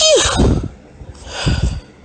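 A woman's high-pitched sneeze, its voiced end falling in pitch, followed about a second and a half in by a short, breathy hitching inhale building toward the next sneeze.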